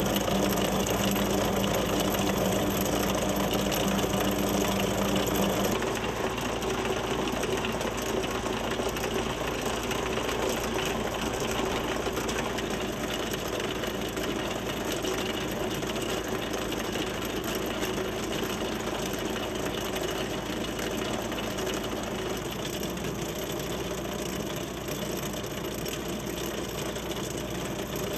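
Tractor-mounted AFT 45 chain trencher digging through turf, with the compact tractor's engine running under load: a steady mechanical din of engine and digging chain. The low engine note drops away about six seconds in.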